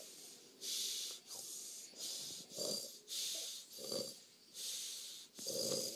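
A toddler imitating snoring. A string of breathy, hissing breaths is broken about three times by a short, lower-pitched grunting sound.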